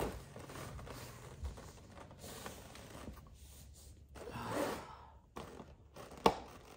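A model train set's box set down on a wooden floor with a thump, then its clear plastic packaging tray being handled with soft rustling, and a single sharp click about six seconds in, the loudest sound.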